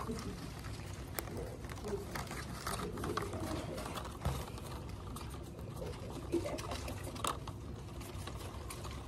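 Black ash splints clicking and rustling as they are handled and woven into a basket, over a steady low room hum.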